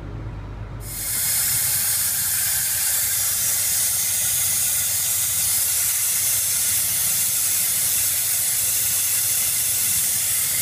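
Compressed shop air hissing steadily, starting about a second in: air escaping during an air leak test of a 6.0 Ford diesel's high-pressure oil system.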